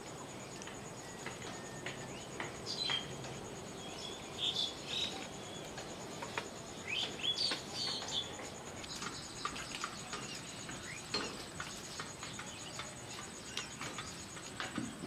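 Outdoor rural ambience: birds chirping in short calls through the first half, over a steady high-pitched insect drone that grows stronger about halfway through.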